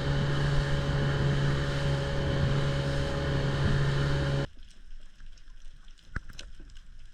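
Motorboat engine running steadily with wind noise. About four and a half seconds in it cuts off abruptly, leaving a much quieter bed of scattered faint clicks and crackles.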